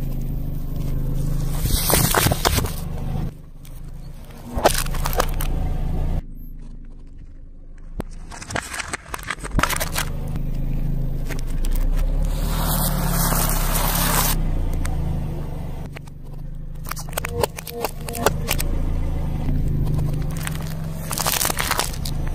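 A car idling with a low steady hum while its tyre slowly rolls over packaged snacks and drink cartons, crushing them. Repeated crackling, crunching and scraping of packaging and food come from under the tyre, with abrupt cuts between one item and the next.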